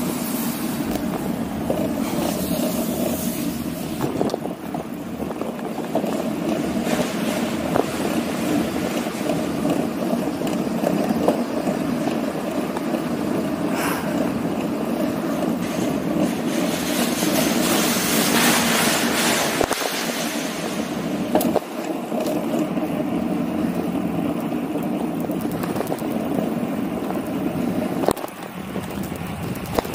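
Steady road and wind noise of a bicycle ride, with wind rushing on the microphone that swells for a few seconds past the middle. A few sharp knocks come in the second half.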